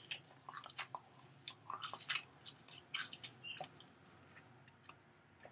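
A person biting into and chewing a piece of cooked chicken: a run of short wet smacks and clicks that thin out after about four seconds.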